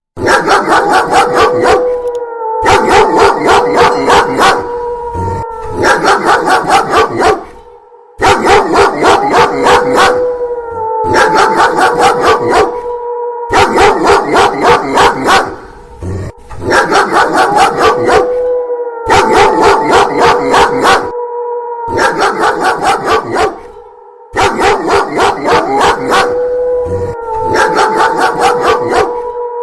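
A dog barking rapidly and loudly, mixed with a wolf's long howls that rise at the start and then hold steady. The mix repeats as a loop about every eight seconds, with brief pauses between repeats.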